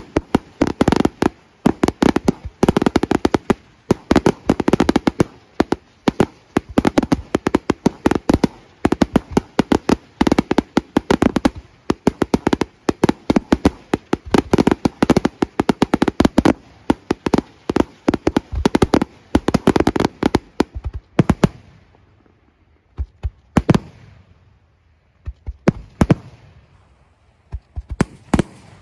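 Aerial firework shells bursting in a dense, rapid volley of bangs. After about twenty seconds the volley thins out to a few separate bangs spaced a second or two apart.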